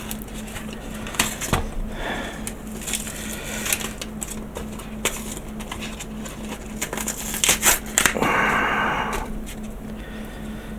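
Hands handling a freshly cured silicone mould, making scattered small clicks and taps, with a longer rubbing or peeling stretch about eight seconds in.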